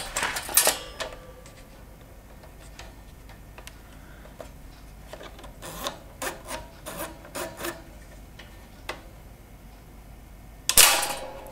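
Handling noise from the mechanical timing and ejection mechanism of an opened Tefal bread toaster: sharp clicks at the start, then small clicks and rubbing of metal and plastic parts as it is worked by hand, with a louder scrape near the end.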